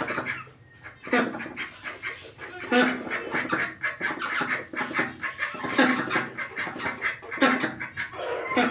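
Hens and a rooster clucking with ducks quacking among them, a steady run of short calls broken by louder, drawn-out calls every second or few.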